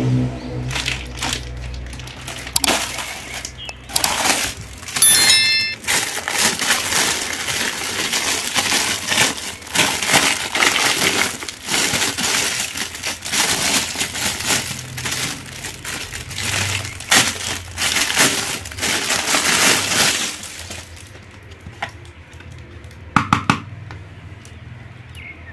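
Clear plastic wrapping crinkling and rustling as hands handle and unwrap a plastic toy mask, a dense run of crackles that dies down to quieter handling with a couple of clicks near the end.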